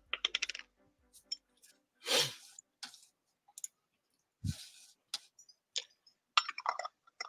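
A glass jar and its screw-top lid being handled on a workbench. It opens with a run of quick clicks as the lid turns, then comes a brief rustling rush about two seconds in, a dull knock about halfway, and a few scattered small clicks.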